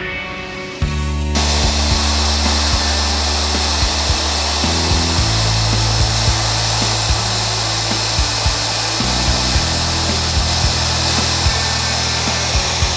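Shaper Origin handheld CNC router running and cutting through Azek cellular PVC board with a steady high-speed spindle noise that comes in about a second in. Background music with a steady beat plays underneath.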